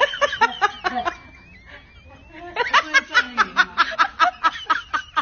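Hearty laughter in fast repeated bursts, about six or seven a second, dropping away briefly about a second in and breaking out again near the middle.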